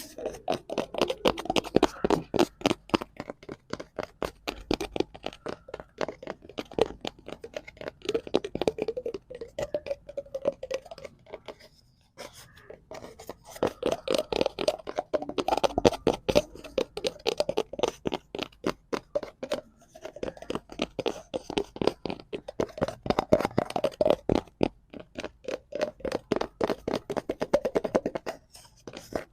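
Fingers tapping and scratching quickly on cardboard, a fast patter of dry taps in bursts, with a short break about twelve seconds in.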